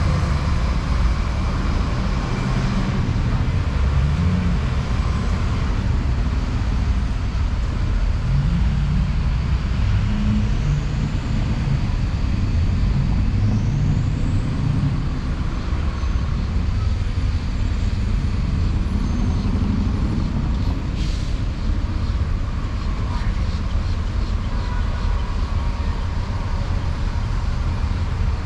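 Road traffic on a busy city street, with the engines of passing vehicles running in a steady rumble. There are two short rising high squeals about a third of the way in, and a sharp click later.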